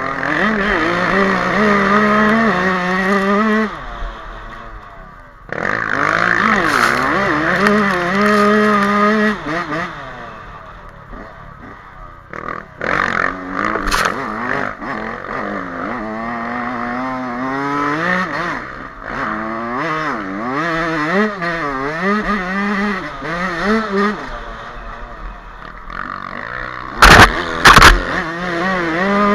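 Yamaha YZ125 two-stroke dirt bike engine revving hard and falling back over and over as the rider works the throttle through sandy ruts, easing off about four seconds in before picking up again. Two loud knocks near the end.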